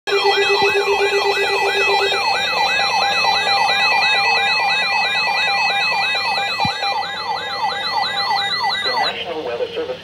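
Several weather alert radios sounding their warning alarms together for a severe thunderstorm warning. A sweeping tone repeats about three times a second over steady and pulsing high tones, a low steady tone drops out about two seconds in, and all of it cuts off about nine seconds in as the broadcast voice begins.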